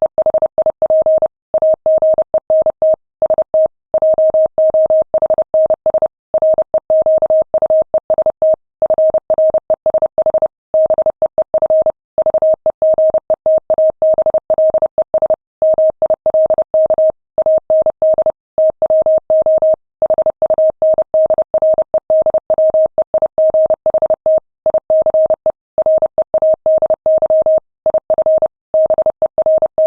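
Morse code at 30 words per minute: a single steady mid-pitched tone keyed rapidly on and off in dots and dashes, spelling out ship's message traffic.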